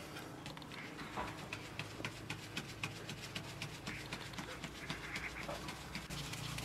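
Flour being sifted through a wooden-rimmed drum sieve shaken by hand over an aluminium basin: a quick, even run of light taps and rustles, several a second.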